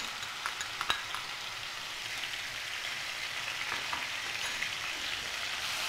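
Green paste of ginger, garlic, onion and green chilli sizzling steadily in hot oil with cumin seeds in a frying pan, with a sharp tap about a second in.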